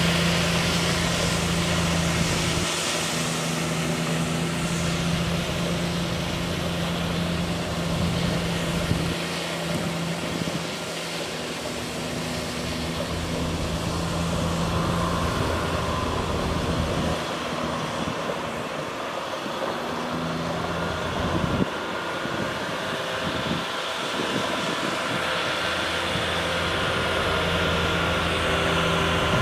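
The Caterpillar C7 diesel engine of a Ford F750 water truck running as the truck drives, with its low hum dropping away and coming back several times. Early on there is the hiss of water spraying from the truck onto gravel.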